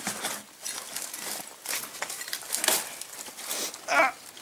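Footsteps crunching through brambles and debris, with branches rustling and scraping in short irregular bursts. A louder burst comes near the end.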